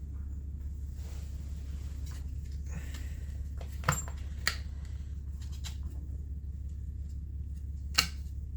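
A few sharp metallic clinks of hand tools and small metal parts being handled, the loudest about four seconds in, again half a second later, and near the end, over a steady low hum.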